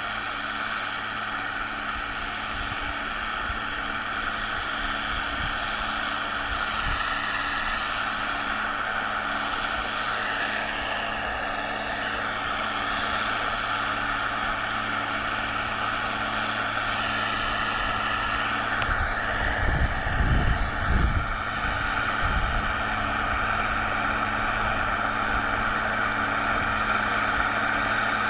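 Large diesel tractor engine running steadily while ploughing. Wind buffets the microphone for a few seconds about twenty seconds in.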